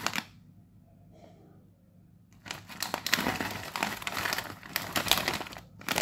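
Foil-lined plastic snack packet (Nova Choco Pockets) crinkling as it is handled. A short burst comes at the start, then about two seconds of quiet, then steady crinkling for about three and a half seconds.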